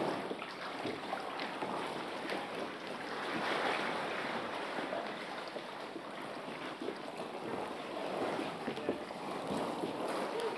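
Seawater sloshing and lapping inside a rock sea cave: a continuous wash that swells and eases, with small splashes.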